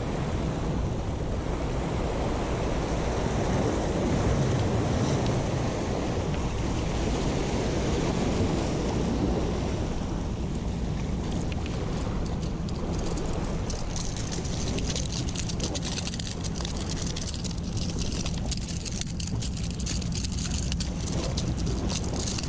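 Wind buffeting the microphone over sea surf washing against breakwater rocks, a steady rushing with a low rumble. From about two-thirds of the way in, a scatter of light clicks rides on top.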